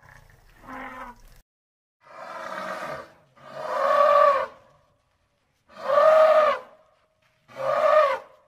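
Elephant trumpeting: five calls about a second apart and about a second long, each rising and then falling in pitch. The first call is faint and the later ones loud.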